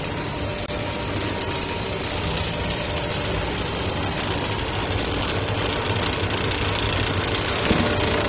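Air bubble film production machine running: a steady mechanical whir of motors, rollers and chain drives over a low hum.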